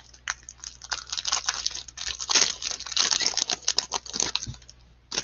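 Shiny foil trading-card pack being torn open and its wrapper crinkled by hand: a dense crackle of crinkling and tearing that builds about a second in, is loudest in the middle, and dies away near the end.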